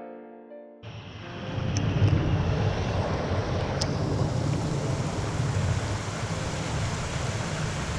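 Steady outdoor rushing noise, heaviest in the low end, fading in about a second in after a brief drop to near silence, in the manner of wind buffeting a body-worn camera microphone.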